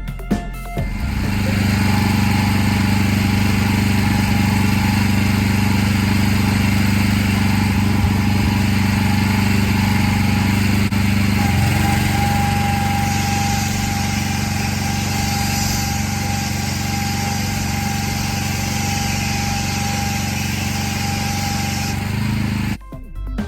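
Petrol-engined pressure washer running steadily. Its pitch drops slightly about halfway through, and a high hiss joins soon after.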